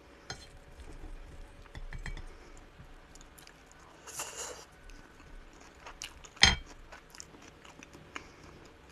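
Quiet eating sounds: a metal fork clicking lightly on a ceramic plate, a bite with brief chewing about four seconds in, and one sharper knock of tableware a couple of seconds later.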